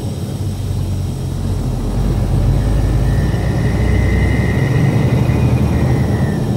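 Truck engine running steadily at highway speed, heard from inside the cab as a low drone with road noise. A faint high-pitched whine joins in about two and a half seconds in and fades near the end.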